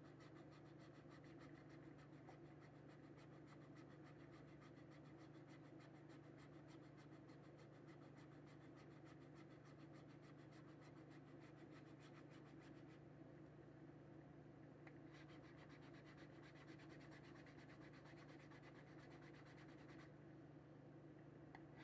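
Hand abrading of a plastic case edge: fast, continuous scraping strokes, faint, easing off briefly about two-thirds through and again near the end. A steady low hum runs underneath.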